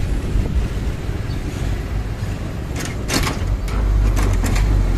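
Low wind rumble on the microphone and engine and road noise from riding in city traffic close behind a truck, growing louder near the end. A few short hissing noises come in around the middle.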